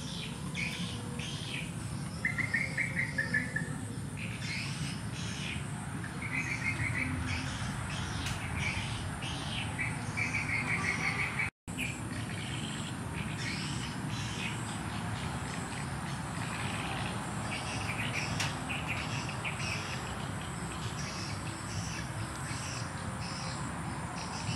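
Small birds chirping and trilling in short, quick phrases over a steady low outdoor background, with a faint steady high whine underneath. The sound cuts out for an instant about halfway through.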